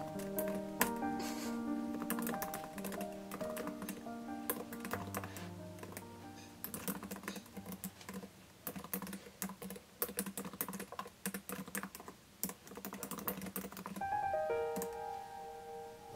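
Typing on a Microsoft Surface Pro 7 Type Cover keyboard: quick, irregular key clicks. Background music plays under it, dropping away about seven seconds in and returning shortly before the end.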